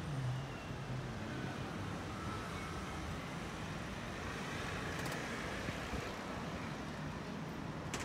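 City street traffic: a steady wash of car engines and tyres at an intersection, with a car driving past close by around the middle.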